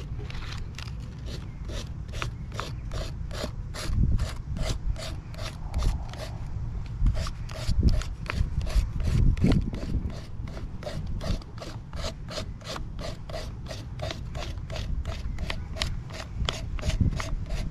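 Sandpaper rubbed back and forth over the metal spring contact of a Vespa PX turn-indicator lamp socket in an even rhythm of about three strokes a second, with a low rumble and a few heavier thumps underneath. It is cleaning the dirty contact surface that the owner suspects is breaking the lamp's ground connection.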